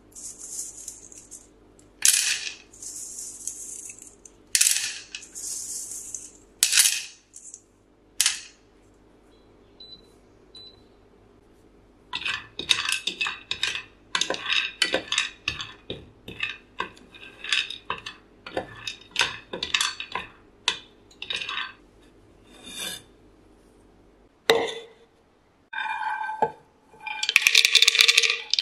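Hard dried date seeds clattering in a nonstick frying pan. First they are tipped from a plastic mesh sieve with sliding hiss and sharp strikes. Then they are stirred during dry-roasting with a wooden spoon in rapid, irregular clicks, and near the end the roasted seeds are poured into a plastic blender cup in a dense rattle.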